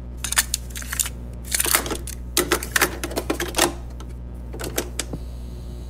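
Sharp mechanical clicking and clacking in irregular clusters, over a low steady hum.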